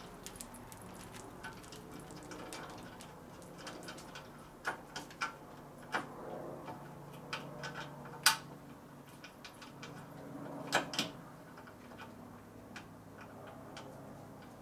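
Scattered light metallic clicks and taps of hand tools and a mounting bolt being worked at a motorcycle's gas tank. One sharper clink comes a little past halfway and a close pair a few seconds later.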